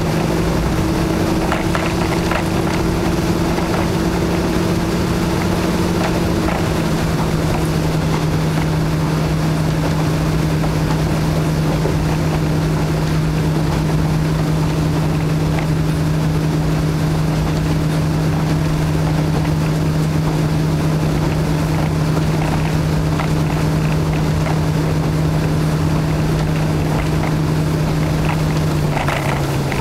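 KiHa 52 diesel railcar heard from inside the cabin: its DMH17-series diesel engines drone steadily under power over a haze of wheel and rail noise. The engine note dips slightly about six seconds in and drops lower near the end as the power is eased.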